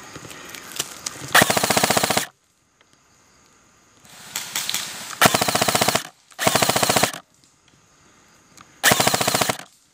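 Airsoft rifle firing on full auto: four short bursts of rapid shots, each under a second long, the last three close together near the middle and end.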